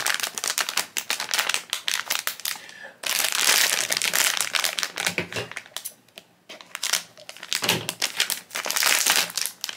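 Foil blind-bag packet crinkling and crackling as it is handled and opened, with brief pauses about three and six seconds in.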